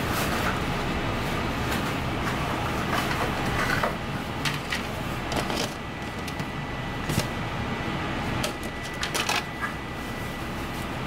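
Steady kitchen background hum with scattered light clicks and clatters of utensils. A faint steady high tone comes in partway through.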